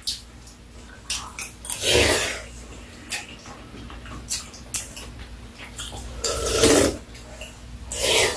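Eating at the table: metal spoons clicking against bowls, with a few louder wet slurping sounds as stew is spooned up and eaten.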